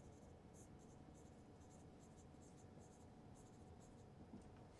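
Marker pen writing on a whiteboard, faint: an irregular run of short, high scratchy strokes as a word is written in cursive.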